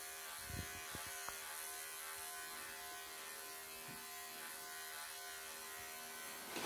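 Wahl professional pet clippers with a comb attachment running with a steady electric hum as they cut a cat's long chest fur. A few light knocks come within the first second or so and once more near four seconds.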